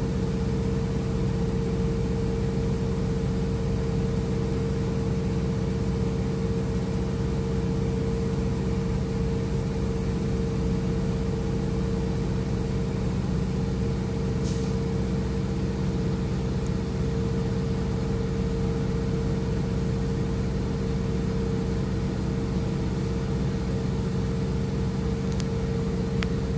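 Heavy diesel semi-truck engine idling: a steady, unbroken low drone with a constant hum, and a faint click about halfway through and another near the end.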